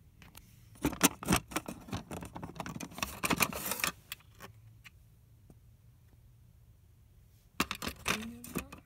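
Plastic cassette tape cases clicking and clattering against each other as they are handled and pulled from a rack, in two bouts: a busy clatter for about three seconds, a few quiet seconds, then more clicking near the end.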